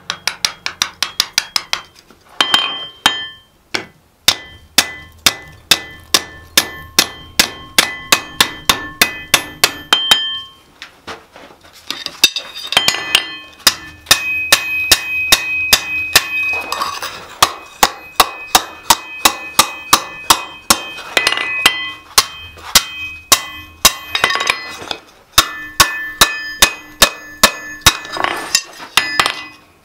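Hand hammer striking a red-hot mild steel flat bar on an anvil in quick runs of blows, about three a second, broken by a few short pauses. The anvil rings loudly after the blows.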